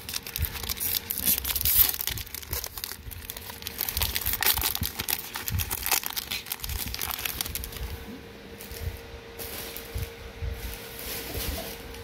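Foil wrapper of a Magic: The Gathering draft booster pack being torn open and crinkled in the hands, a dense crackling that dies down after about eight seconds, leaving only a few light ticks.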